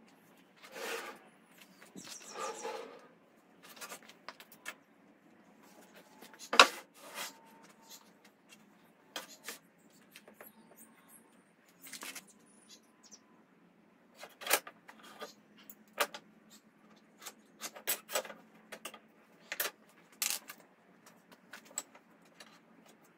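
Handling noises from MDF boards and a steel rule being moved and set down on a workbench: scattered knocks and taps, the sharpest about six and a half seconds in, and two brief scrapes in the first three seconds as a board is slid into place.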